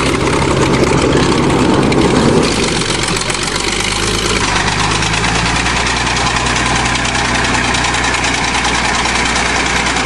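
Vintage crawler bulldozer's engine running steadily on a steep dirt slope, rougher and louder for the first couple of seconds.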